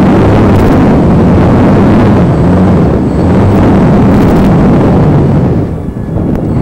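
Radio-controlled model Cessna's motor and propeller running loud with a steady low hum, mixed with rumbling as the plane rolls over rough dirt ground. The noise drops away about five and a half seconds in.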